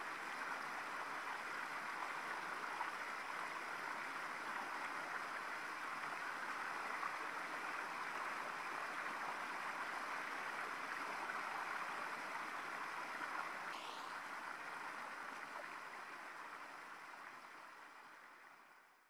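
Flowing stream ambience: a steady rush of running water that fades out over the last few seconds, with a brief rising whistle about fourteen seconds in.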